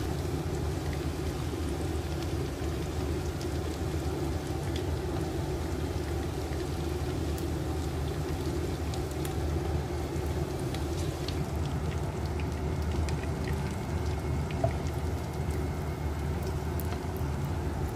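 Coated fish pieces frying in hot oil in a pan, a steady sizzle with scattered small crackles and pops. A steady low hum runs underneath.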